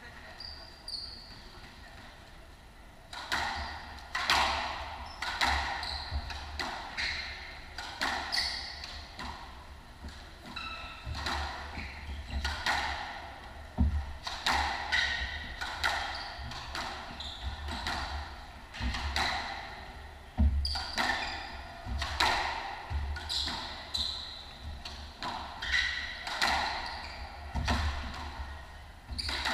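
Squash rally: the rubber ball is struck by rackets and smacks off the court walls about once a second, each hit sharp and echoing in the enclosed court. The rally starts about three seconds in.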